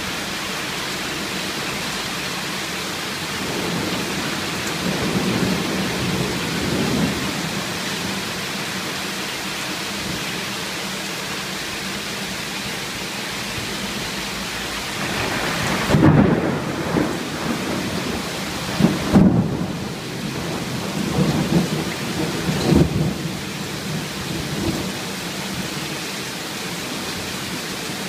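Heavy rain mixed with small pea-sized hail pouring steadily. A low rumble swells about four seconds in, and a run of louder rumbling surges follows from about fifteen to twenty-five seconds in.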